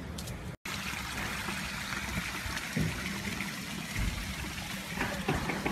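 Steady trickling and splashing of swimming-pool water, with a brief dropout about half a second in.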